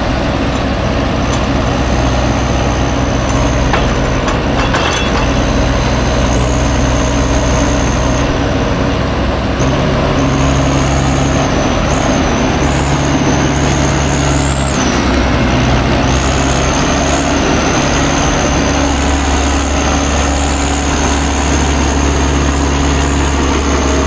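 Diesel engine of a forestry forwarder running steadily, with a high thin whine over it that wavers in pitch around the middle.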